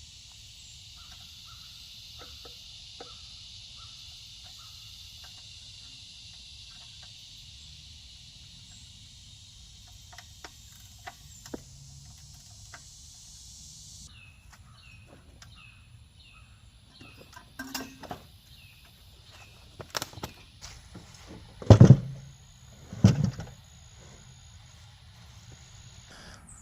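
A steady, high insect chorus that stops abruptly about halfway through. In the second half come short repeated chirps and a few scattered knocks, then two loud thumps near the end.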